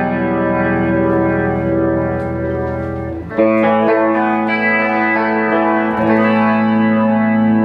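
Electric guitar chords through a Yamaha RA100 amplifier: one chord rings on with a slight waver, then a new chord is struck a little over three seconds in, louder and brighter, and left to ring.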